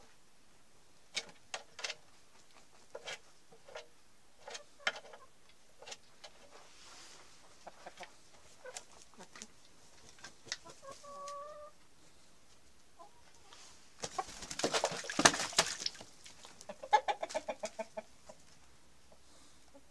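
Chickens clucking in short scattered notes, with one held call a little past halfway. About two thirds through comes a loud burst of rustling, scuffling noise, the loudest sound here, followed by a quick run of short squawks.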